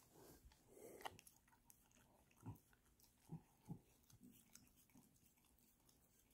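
Border terrier licking yogurt out of a small ceramic bowl: faint wet lapping and smacking, with three short soft knocks between about two and a half and four seconds in.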